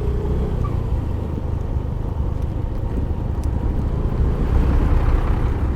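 Yamaha Mio i 125 scooter's single-cylinder engine running steadily while riding, mixed with wind rumble on the camera's microphone.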